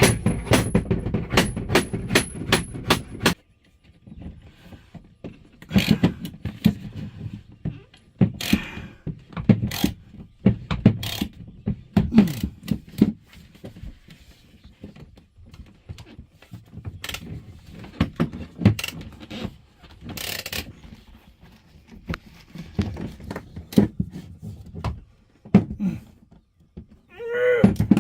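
Hand tools and hardware knocking, clicking and scraping during bunk installation in a truck's sleeper cab. It opens with about three seconds of rapid, even clicking, followed by scattered thunks and scrapes, with a short pitched sound near the end.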